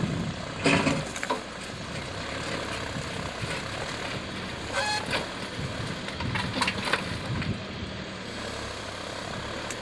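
Tractor's diesel engine running steadily, with a few brief knocks and clatters over it.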